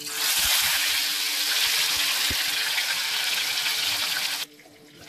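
Marinated chicken leg sizzling in hot oil in a frying pan, a steady hiss that starts as the piece is laid in and stops abruptly after about four and a half seconds.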